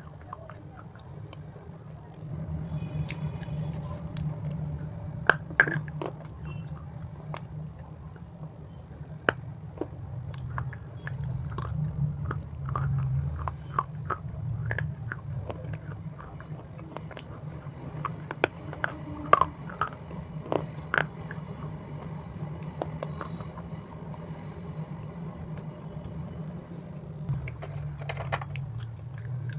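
Close-miked chewing of a crunchy snack: a continuous low chewing sound with many scattered sharp crunches and mouth clicks, picked up by a clip-on microphone.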